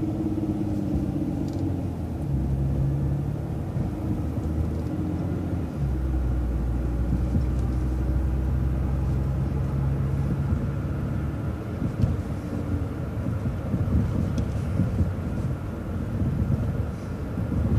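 Engine hum and road rumble heard from inside a moving vehicle driving the route. There is a steady engine tone that shifts about six seconds in and fades after about eleven seconds, leaving an uneven low rumble.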